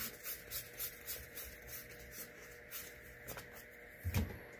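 Trading cards from a Magic: The Gathering booster pack being slid and flipped one by one: a run of soft, quick paper swishes, about two or three a second, thinning out later. A short low hum near the end.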